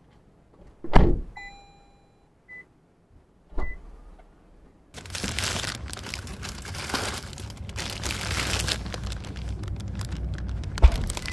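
A car door shuts with a loud thump about a second in, followed by a few short electronic beeps and a second, softer thump. From about five seconds in there is a steady rough rushing noise, with a sharp click near the end.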